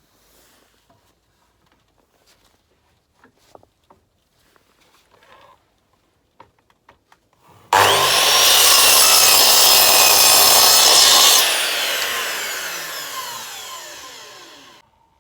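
Electric power saw cutting a pallet board: it starts abruptly about eight seconds in, runs at full speed for a few seconds, then is switched off and winds down, its pitch falling. Before it, a few light knocks of boards being handled.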